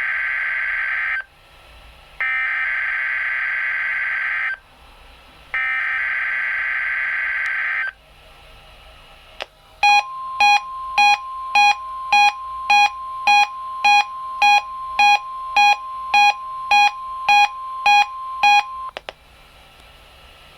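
NOAA Weather Radio Emergency Alert System test signal. It opens with three bursts of SAME header data, a harsh warbling screech about two seconds each, the first already under way. After a short pause comes the steady 1050 Hz weather radio warning alarm tone for about nine seconds, with a Reecom alert receiver beeping about twice a second over it until the tone cuts off.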